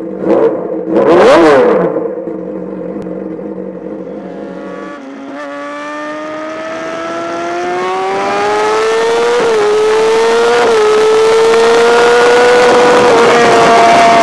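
Yamaha R6 inline-four sports-bike engine heard onboard at full throttle: from about five seconds in its pitch climbs steadily and gets louder over wind rush, with two brief hitches near the end. Before that, a few sharp knocks and a quick rising-and-falling whine open over the title card.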